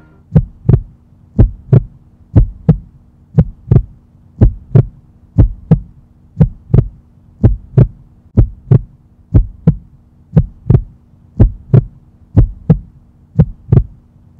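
Heartbeat sound effect: paired lub-dub thumps about once a second, steady in rhythm, over a low steady hum.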